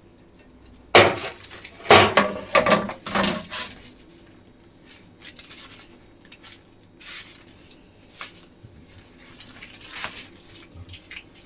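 Kitchen handling noises on the worktop: a run of knocks and clatter from about one to three and a half seconds in, then scattered light taps and rustles while the pizza dough is rolled up on its paper.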